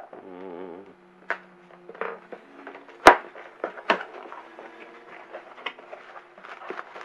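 Cardboard shipping box being opened by hand: packing tape pulled off with a short wavering squeal in the first second, then cardboard flaps rustling and bending back with several knocks, the loudest about three seconds in.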